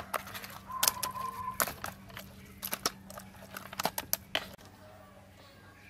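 Hands rubbing salt into raw fish in a plastic basin: irregular wet crackling and clicking of salt grains and fish skin under the palm, which stops about four and a half seconds in.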